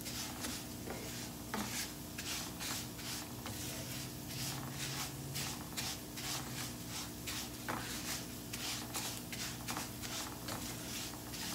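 Dry rice grains being stirred and scraped around a frying pan with a spoon as they toast golden: a steady run of short swishing, scraping strokes.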